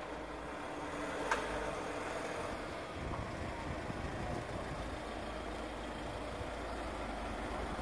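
Box-body delivery van driving slowly past, with steady engine and tyre noise. There is a single sharp click about a second in.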